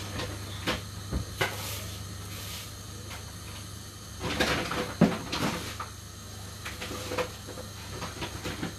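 Kitchen cabinet door and handling clatter: a few sharp knocks, then a busier cluster about four and a half seconds in with one louder bang, over a steady low hum.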